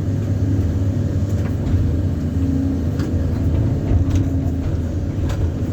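An engine running steadily: a low, even rumble with no revving.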